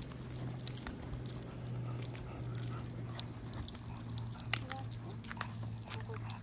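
Pet stroller rolling over pavement: a steady low rumble from the wheels with scattered light clicks and rattles.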